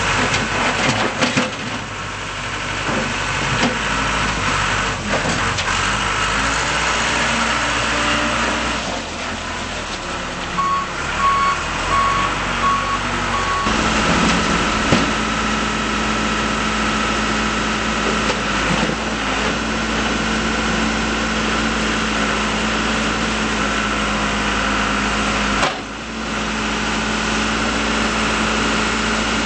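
Case 580L Series II backhoe's diesel engine running steadily, its note changing about halfway through. A short run of about five evenly spaced beeps comes just before the change.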